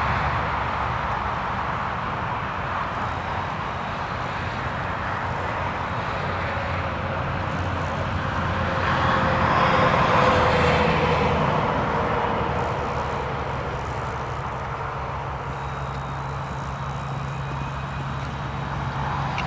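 Steady engine drone that swells to its loudest about ten seconds in and then fades again, its pitch falling slightly as it passes.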